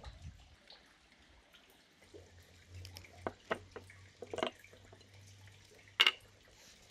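Light clicks and knocks of a glass pitcher and its lid being handled on a wooden table, with one sharp click about six seconds in.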